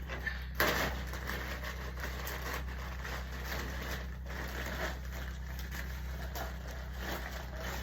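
Packaging being handled and unwrapped: irregular rustling and crinkling, with a louder rustle about half a second in, over a steady low hum.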